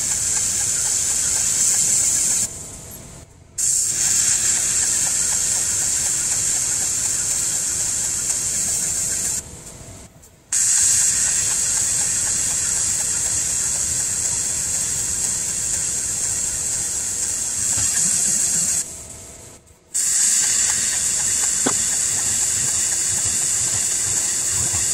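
Steady high hiss of a 50 W fiber laser marking aluminium. It cuts out three times for about a second, near 3, 10 and 19 seconds in, then starts again.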